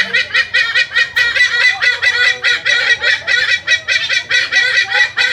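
Poultry calling in a long, loud run of short repeated calls, about five a second.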